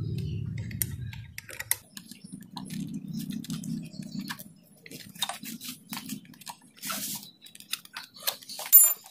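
Hex key loosening the bolt of a metal motorcycle cable holder: scattered small metallic clicks and scrapes as the key and parts are handled, with a sharper click that rings briefly near the end. A faint low hum sits underneath for a few seconds in the middle.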